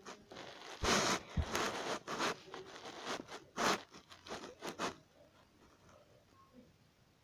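A quick run of scratchy drawing strokes on paper, close to the microphone, starting about a second in and stopping about four seconds later.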